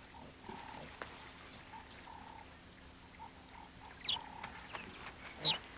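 Leopard cubs play-fighting with their mother, giving faint short calls, with two louder, sharp cries about four and five and a half seconds in.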